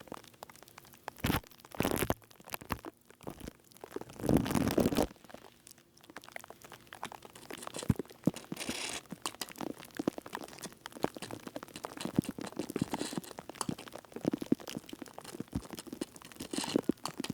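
Close-up ASMR trigger sounds worked right against a microphone: dense, irregular crackling and crunching made of many small clicks, with a louder rustling burst about four to five seconds in.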